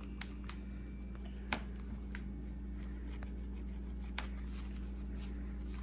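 Rapala fillet knife skinning a largemouth bass fillet on newspaper: faint scraping, with a few light clicks and paper rustles, over a steady low hum.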